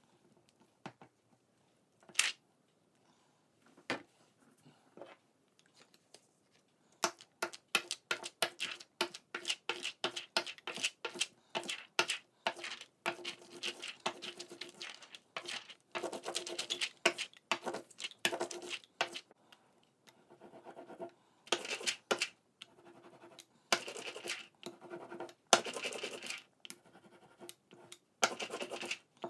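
Rubber brayer rolling block-printing ink back and forth over a masking-tape print plate: a run of short, quick rolling strokes, one to two a second, starting several seconds in after a few scattered clicks.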